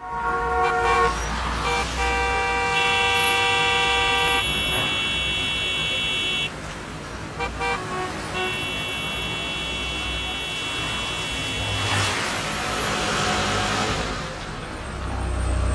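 Car horns honking in a traffic jam: several long, steady blasts at different pitches, some overlapping, with a couple of short toots in between. A rushing swell follows, then a low bass comes in near the end.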